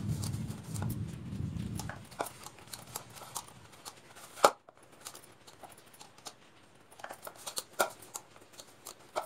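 Hands kneading a stiff dough of wheat flour and semolina in a plastic bowl. There is a low rubbing and squishing for the first two seconds, then it goes quieter, with scattered sharp clicks and taps.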